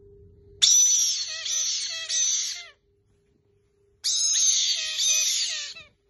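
Young caique parrots giving high, noisy screeching calls in two bursts of about two seconds each, a little over a second apart.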